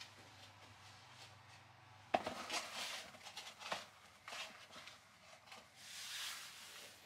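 Leather loafers being taken off and set down on a tiled entryway floor: a sharp tap about two seconds in, then light scuffs and rustles as a hand straightens the shoes.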